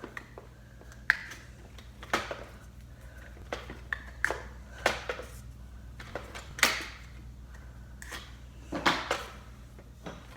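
Scattered sharp plastic clicks and knocks of a Nerf blaster being handled, about nine or ten of them, irregularly spaced, over a faint steady low hum.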